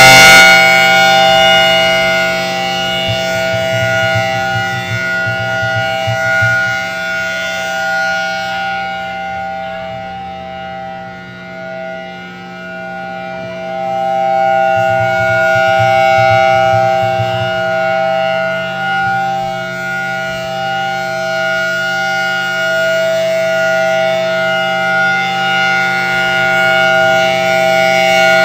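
Federal Signal Thunderbolt 1000T outdoor warning siren sounding a steady tone at a constant pitch, its loudness fading and swelling as the rotating horn turns away and back, faintest about twelve seconds in.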